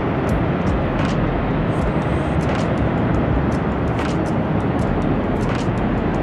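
Steady roar of wind and heavy ocean surf, with strong low rumble from wind on the microphone.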